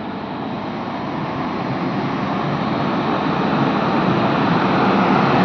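Indian Railways WAG-9 electric locomotive, just powered up and running, giving a steady whirring noise that grows gradually louder.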